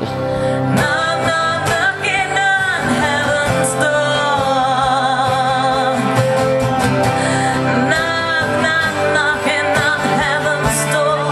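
Music: a song with a singing voice holding wavering notes over instrumental backing.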